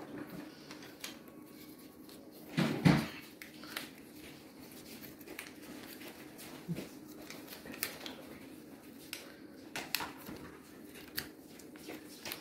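Small clicks and faint paper sounds of fingers picking at a sticker to peel it off its paper backing, with one louder short bump about three seconds in.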